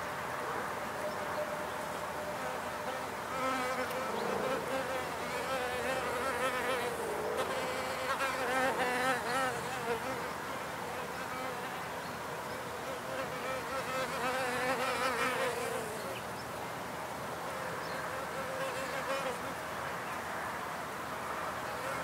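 Wild bees buzzing in a continuous hum around their nest in an old car wreck, swelling louder a few times as bees fly close past.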